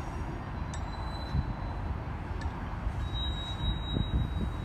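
Distant freight train rolling into a rail yard: a low, steady rumble, with a thin high squeal of steel wheels starting about three seconds in.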